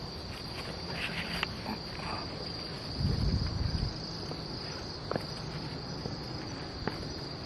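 Night insects chirring in a steady, high-pitched trill, with a brief low rumble about three seconds in.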